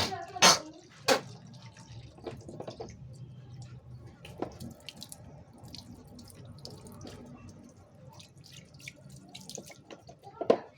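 Water splashing and dripping, with a few sharp knocks in the first second and another near the end.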